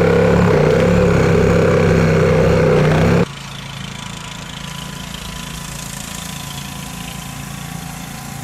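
A motor running loud and steady, cutting off abruptly about three seconds in and leaving a quieter, steady low hum.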